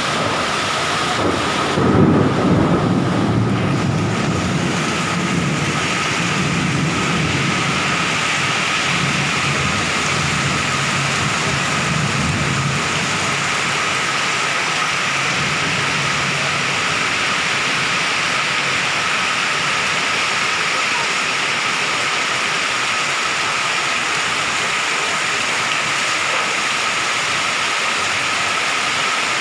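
Strong wind blowing in a storm: a steady rushing, with a low rumble that swells about two seconds in and dies away by about thirteen seconds.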